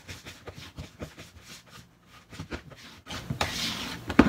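A whisk stirring thick matcha sponge-cake batter in a plastic bowl: faint wet clicks at first, then a louder scraping rub against the bowl about three seconds in, with a sharp knock near the end.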